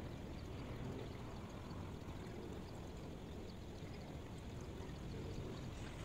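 Steady white-noise background: an even rushing noise with most of its weight low down.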